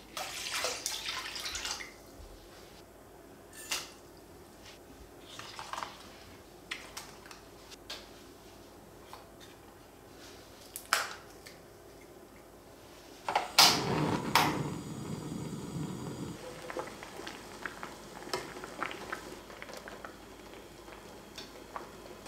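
Kitchen prep sounds of broth ingredients being handled and set into a stainless steel pot of water: scattered light knocks, clinks and small splashes. About two-thirds through there is a louder splash of water lasting about three seconds, and near the end the pot bubbles quietly.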